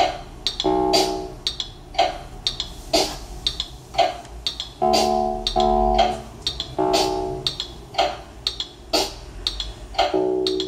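Teenage Engineering PO-24 pocket operator playing a looped electronic beat through a small portable speaker: a strong hit about once a second with lighter hits between, and short pitched chord stabs dropping in and out as the pattern is tweaked.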